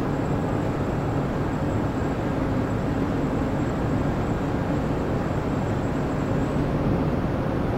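Steady, even rumble of the car ferry Toba-Maru's engines and machinery, with a low hum.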